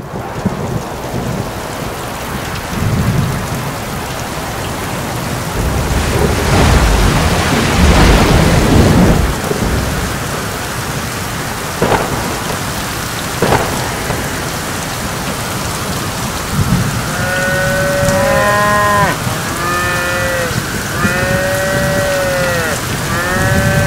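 Steady heavy rain with thunder: a long rumble swells loudest a quarter of the way through, then two sharp thunder cracks follow a little past the middle. In the last third, cattle moo repeatedly over the rain.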